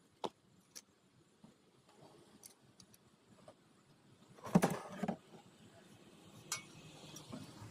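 Light metallic clicks and clinks, then a louder clatter about four and a half seconds in, as a piece of scrap metal is handled and picked up.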